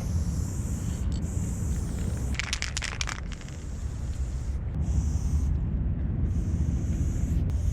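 Aerosol spray paint can hissing in bursts, cutting off and starting again several times, with a quick run of clicks about two and a half seconds in. A heavy low wind rumble sits on the microphone throughout.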